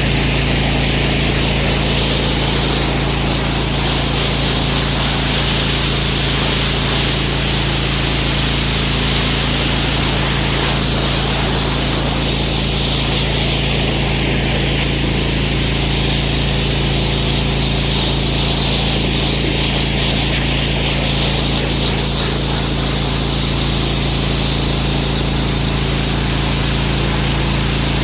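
Pressure washer running steadily, its motor humming under the hiss of the high-pressure water jet. The hiss changes in tone for a stretch in the middle.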